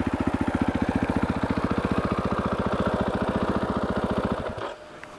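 2021 KTM 500 EXC's single-cylinder four-stroke engine idling with a rapid, even beat, then shut off about four and a half seconds in, dying away quickly.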